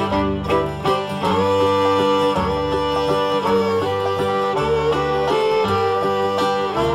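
Instrumental passage of a country gospel song with no singing. A string band plays: plucked notes at first, then a melody held in long, slightly wavering notes over a plucked accompaniment from about a second in.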